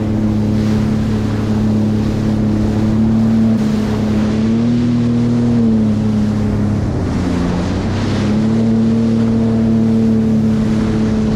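Sea-Doo FishPro Sport 170 personal watercraft's Rotax three-cylinder engine running at a steady speed over wind and water rush. Its pitch rises briefly about a third of the way in, dips just past halfway, then settles back to a steady note.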